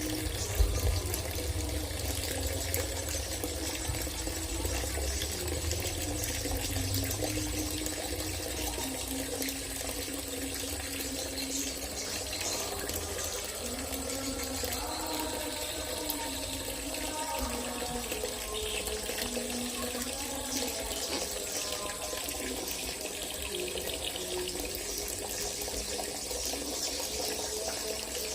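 Dense chorus of edible-nest swiftlets twittering and chirping as the flock returns to the swiftlet house at dusk.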